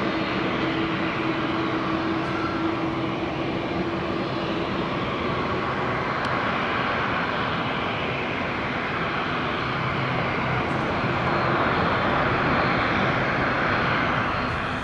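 Airbus A350's Rolls-Royce Trent XWB jet engines running as the airliner touches down and rolls out along the runway: a steady jet rush with a low hum that fades over the first few seconds, growing louder about eleven seconds in.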